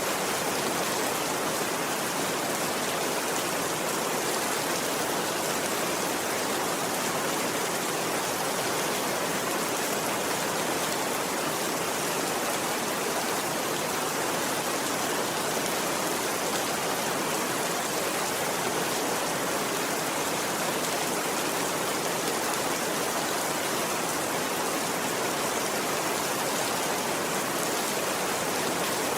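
Steady rain falling, an even hiss with no pauses or changes.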